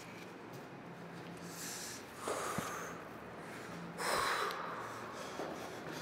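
A person breathing out heavily twice, two short puffs of breath about two seconds apart, the second the louder.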